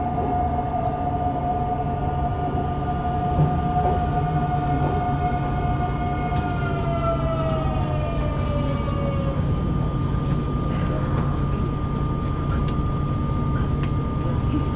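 Mitsubishi GTO-VVVF inverter and traction motors of a Yokohama subway 3000A train: a steady electric whine over the rumble of wheels on rail. From about six seconds in, the whine glides down in pitch over a few seconds as the train slows.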